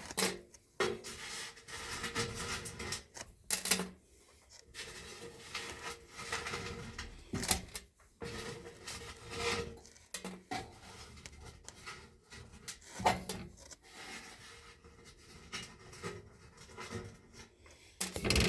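Hands handling and rubbing metal parts of an air handler, with scattered scrapes, clicks and knocks.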